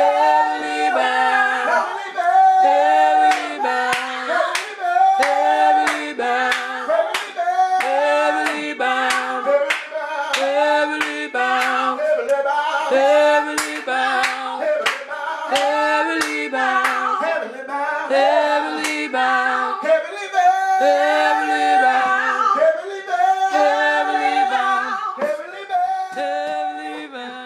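Several voices singing a gospel song a cappella in close harmony, with sharp hand claps keeping the beat.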